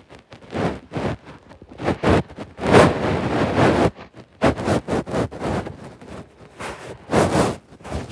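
Irregular knocks, scrapes and rustles of hands working on a gear knob close to the microphone, in bursts of a fraction of a second to about a second.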